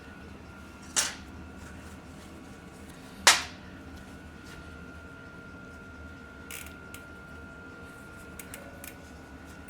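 Two sharp knocks a bit over two seconds apart, then a few light clicks: a socket and tools on the bicycle hub as a greased wheel bearing is pressed back into its seat.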